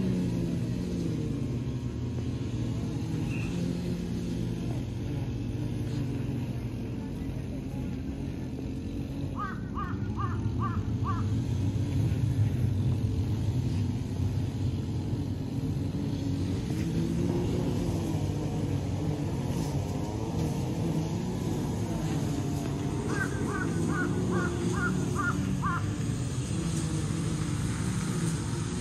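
A crow cawing in two quick runs of five or six caws, about ten seconds in and again later, over a steady low rumble.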